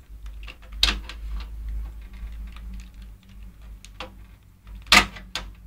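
Screwdriver working screws on the sheet-steel back panel of a desktop PC case: small metallic ticks and scrapes, with two sharper knocks about a second in and near the end.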